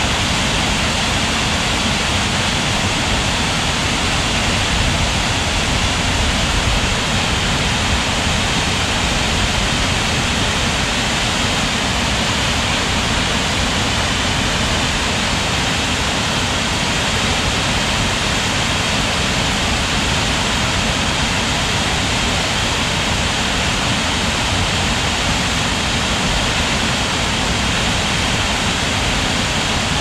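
Scaleber Force waterfall on Black Gill Beck running high after heavy rain: water pouring over the falls in a steady, loud rush.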